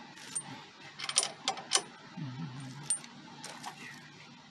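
Scattered light metallic clicks and clinks, about half a dozen, from tow-bar mounting hardware being handled and fitted by hand.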